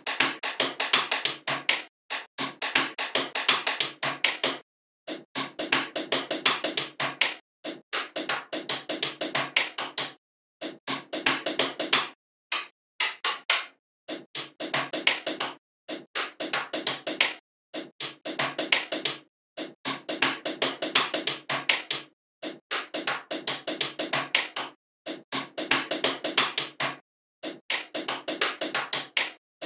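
Small neodymium magnet balls clicking together as rows of them are snapped onto a structure. The clicks come in rapid bursts of two to three seconds, broken by short silences.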